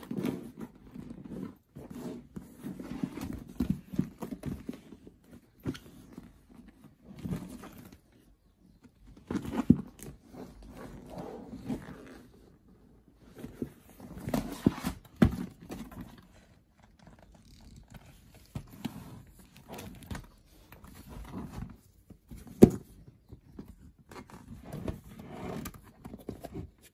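Stiff coated-canvas duffle bag being handled: irregular rubbing, crumpling and rustling of the canvas and leather, with a few sharp knocks.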